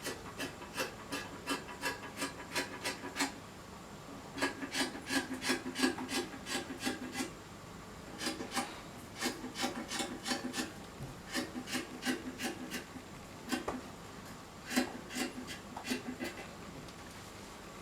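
Scissors snipping through stretch fabric, runs of quick cuts at about three a second broken by a few short pauses.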